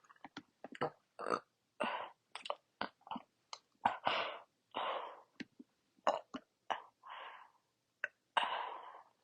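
A person forcing burps from a bloated stomach: a quick run of throat and mouth clicks from gulping air, broken by several short, airy burps.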